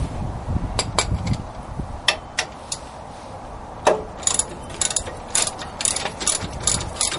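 Hand socket ratchet clicking as it backs out a wheel hub assembly's mounting bolts. There are a few separate clicks at first, then a steady run of about three clicks a second from about four seconds in.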